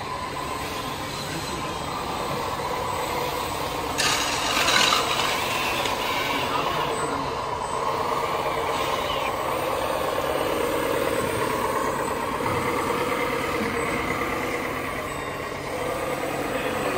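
Radio-controlled scale Komatsu wheel loaders working in sand, with a steady engine-like drone throughout and a sudden sharp hiss, like an air release, about four seconds in.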